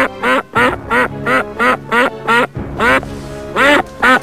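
Duck quacking in a rapid run, about three quacks a second with a short pause near the end, over background music.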